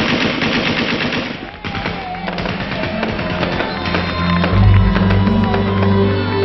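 Fireworks crackling and popping, with background music coming in over them; a low bass line enters about four and a half seconds in.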